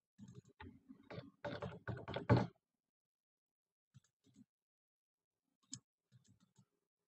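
Computer keyboard and mouse clicks: a quick run of keystrokes and clicks over the first two and a half seconds, loudest near the end of the run, then a few scattered single clicks.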